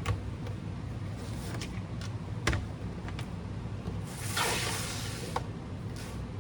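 A few light clicks and a short scraping rustle about two thirds of the way in, over a steady low hum: small handling noises.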